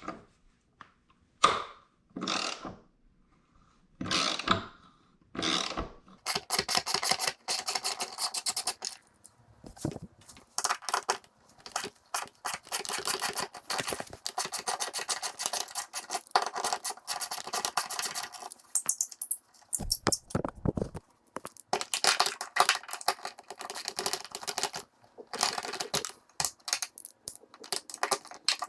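Socket ratchet clicking in fast runs with short pauses, undoing the 10 mm bolts of a jet ski's engine coupling cover. A few separate tool knocks come in the first seconds, and there is a dull thud about twenty seconds in.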